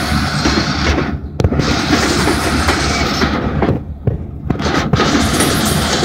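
Covered hopper cars of a freight train rolling past close by: a steady rumble of steel wheels on rail, broken by frequent sharp clanks and bangs.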